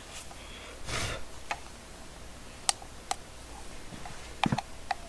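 A brief rustle, then about five short, sharp clicks from handling and pressing the buttons of a Klein 935DAGL digital level, two of them close together near the end.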